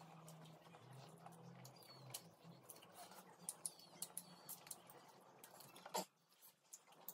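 Faint eating sounds of rice and curry eaten by hand: scattered small clicks and smacks of fingers working food on a steel plate and of chewing. A sharper click comes about six seconds in.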